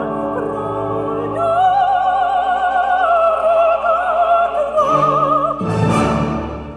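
An opera recording, a high voice singing with wide vibrato over orchestra, played back through a 300B single-ended tube amplifier and Klipsch speakers. It ends on a loud full chord that fades out near the end.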